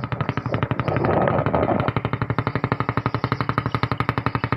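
A small boat's engine running under way with a rapid, even chugging of about a dozen beats a second. It builds up over the first second or so, then holds steady.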